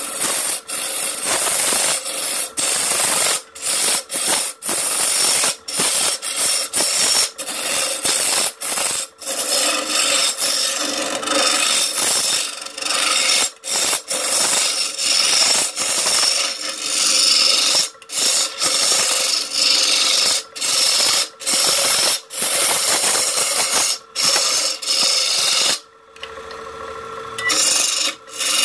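Steel lathe turning tool cutting into the face of a spinning wooden blank as it is hollowed out: a rough hissing scrape, broken every second or so by brief gaps as the tool eases off. The lathe motor's steady hum shows in the gaps, and the cutting stops for a couple of seconds about 26 seconds in before starting again.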